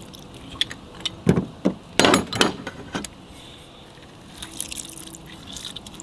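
Short wet, splashy liquid sounds with drips, loudest in a cluster from about one to two and a half seconds in, then a few light clicks near the end.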